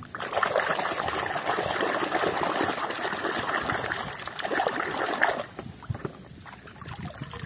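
Water sloshing and swishing in a plastic tub as a toy car is scrubbed by hand under the surface to wash off mud. It goes much quieter a little over five seconds in.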